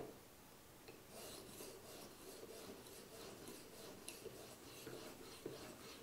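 Faint, quick, even scraping strokes of an Edge Pro Apex sharpening stone on a knife's steel edge, starting about a second in. The stone is grinding a tiny microbevel at about 23 degrees.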